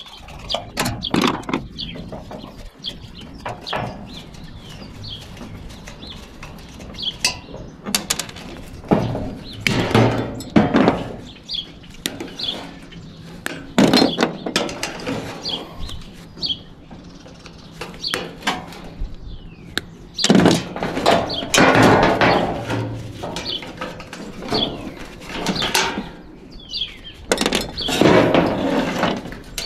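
Sheet-aluminum evaporator housing being worked apart by hand: irregular clanks, rattles and scrapes of metal as a switch box and its flexible metal conduit are pried and pulled loose. A bird chirps now and then in the background.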